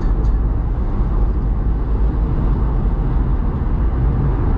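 Steady low rumble of a car driving along a road, with engine and tyre noise heard from inside the cabin.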